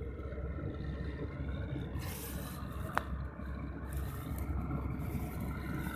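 Combine harvester engine running steadily as a low drone, with two short spells of hiss and one sharp click about three seconds in.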